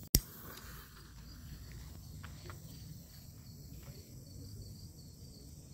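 A sharp click right at the start, then quiet outdoor ambience: crickets trilling steadily and high over a low rumble, with a few faint ticks.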